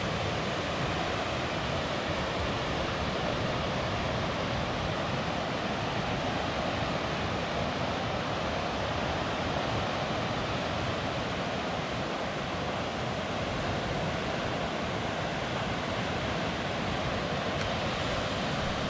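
Ocean surf breaking and washing onto a sandy beach, a steady rushing noise, with wind buffeting the microphone.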